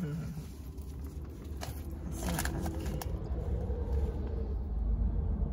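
Low, steady rumble of a car idling, heard inside the cabin, with a few soft clicks and rustles of things being handled in the seat.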